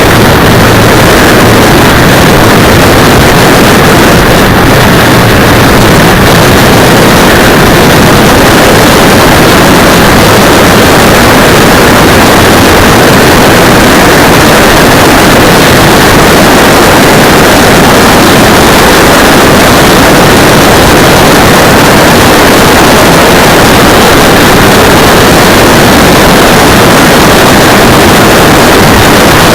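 Wind rushing over a motorcycle-mounted 808 camera's microphone, with the bike's riding noise underneath, at a constant overloaded level: a steady distorted noise in which no engine note stands out.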